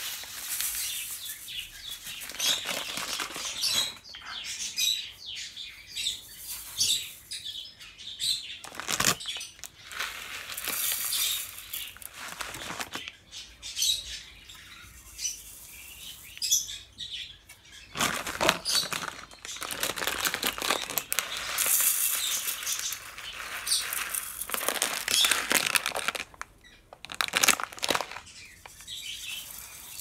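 Small dry seeds pouring from a metal scoop into a large metal bowl of seed and egg-food mix, a dry rustling hiss of grain with small clicks, in several pours with short pauses between them.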